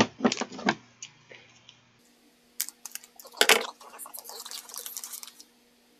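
Small plastic candy-kit packet being handled and torn open: crinkling and crackling rustles with a few sharp ticks, loudest about three and a half seconds in.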